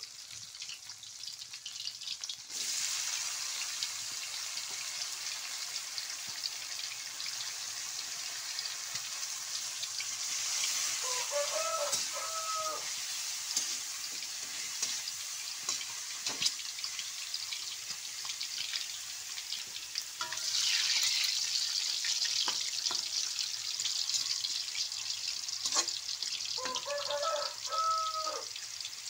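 Bean sprouts sizzling as they are stir-fried in oil in a wok, with a metal spatula scraping and tapping against the pan. The sizzle starts suddenly a couple of seconds in, as the sprouts go into the hot oil, and swells again about ten and twenty seconds in.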